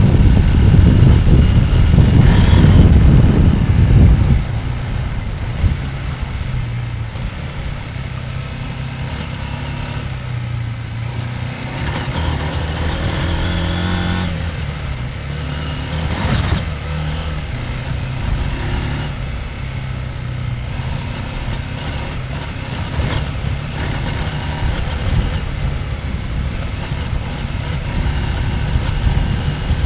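Husqvarna Norden 901's parallel-twin engine running on an off-road ride, loud under throttle for about the first four seconds, then at lower revs that rise and fall as the bike picks its way along.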